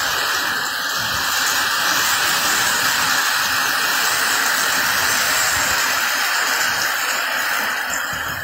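Heavy rain pouring down onto pavement and a flooded street, a steady loud hiss.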